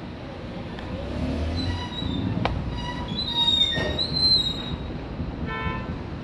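A vehicle's brakes squealing in high, wavering tones over a low engine rumble, with a couple of sharp clicks, then a short beep near the end.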